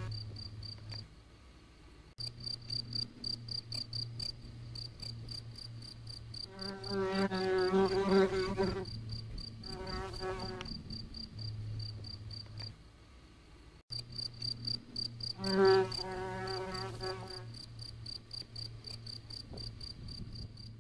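A cricket chirping steadily: a fast, even run of high-pitched pulses over a low hum. A lower, wavering pitched sound rises over it several times, and everything cuts off sharply twice, about two and fourteen seconds in.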